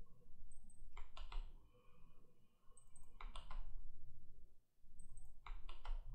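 Faint computer keyboard keystrokes in three short clusters of quick taps, about two seconds apart.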